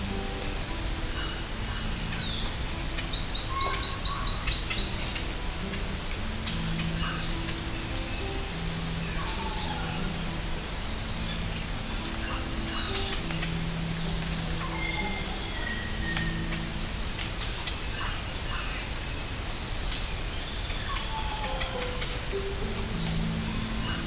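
Tropical forest ambience: a steady high-pitched insect drone with scattered short bird calls and whistles, and soft, low sustained music notes underneath.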